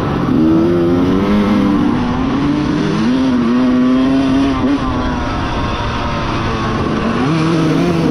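Dirt bike engine running at riding speed, its pitch rising about half a second in, holding fairly steady through the middle, then dropping and climbing again near the end.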